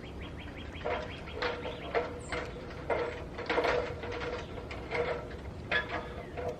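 Footsteps and light knocks, irregular, about one or two a second.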